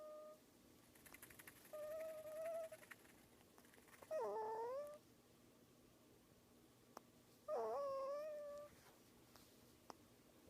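Sleeping prairie dog making high, squeaky whining calls: a short one at the start, then three longer ones of about a second each. The last two dip and rise again in pitch.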